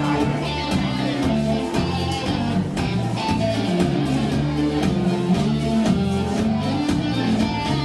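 A contra dance band playing a tune live: guitar strumming under a melody, with a steady dance beat.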